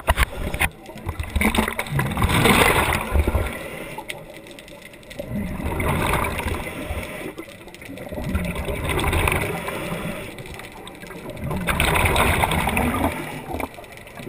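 Scuba diver's breathing heard underwater: bubbling and gurgling that swell and fade about every three to four seconds, each swell an exhalation through the regulator.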